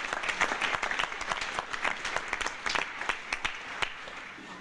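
Theatre audience applauding: dense clapping that thins and fades near the end.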